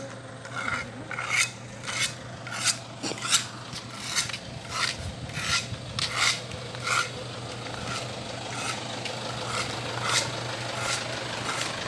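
Footsteps scuffing on a gritty concrete road at a walking pace, about a step and a half per second, growing fainter after about seven seconds, over a steady low hum.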